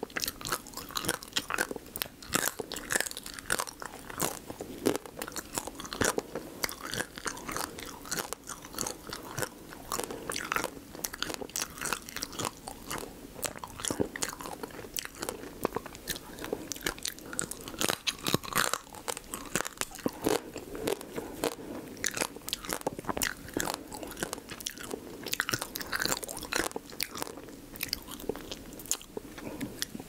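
Close-miked biting and chewing of spicy marinated raw crab (yangnyeom gejang): a dense stream of small crunches and crackles as the thin, brittle shells break and the meat is chewed.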